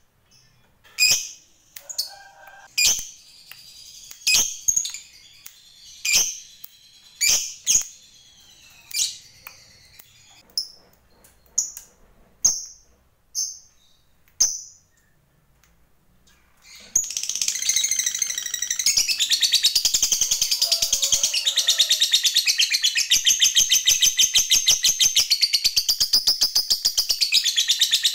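Lovebird giving sharp single chirps about once a second, then, about seventeen seconds in, breaking into a long, rapid chattering trill: the 'ngekek' that fanciers prize in a fighter lovebird.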